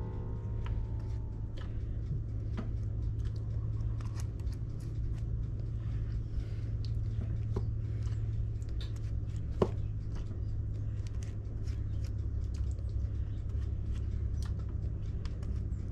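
Steady low hum with faint, scattered small clicks and taps, one sharper tick about ten seconds in, as melted butter with herbs is put on unbaked dinner rolls in a disposable foil pan.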